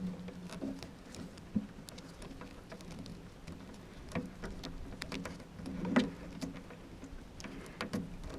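Vinyl electrical tape being pulled off the roll and wound around a coax connector, an irregular crackling of small clicks and rustles, with a sharper snap about one and a half seconds in and again about six seconds in.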